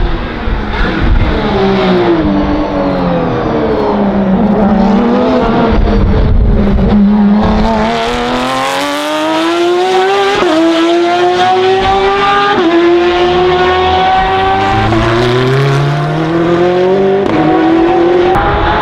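Porsche 991.2 911 RSR race car's 4.0-litre flat-six with open exhaust, very loud: the revs fall for the first few seconds, then climb hard under acceleration with four quick upshifts, one about every two seconds.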